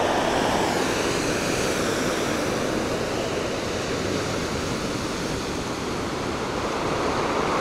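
Heavy Atlantic surf breaking on rocks and a black-sand shore below a sea cliff, heard from above as a steady rushing wash.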